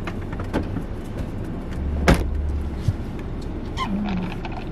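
Steady low rumble of a car's cabin, with one sharp knock about two seconds in, a faint tick soon after, and a brief hummed 'mm' near the end.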